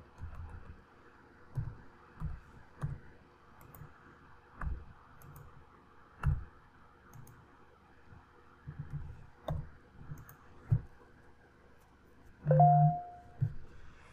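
Computer keyboard keys and mouse buttons clicking at an irregular pace as numbers are typed into form fields. About twelve and a half seconds in comes a louder knock.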